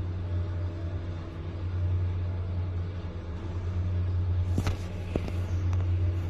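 Steady low hum from an elevator, with a few sharp clicks near the end.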